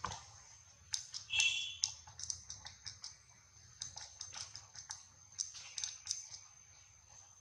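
Irregular soft clicks and ticks of a pig-tailed macaque grooming a young one, picking through its fur, over a steady high-pitched whine. About a second in, a short high chirp lasting about half a second is the loudest sound.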